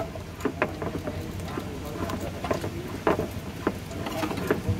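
Wooden pestle grinding peanut sauce for ketoprak on a ceramic plate: irregular clacks and scrapes of wood on china, about two knocks a second.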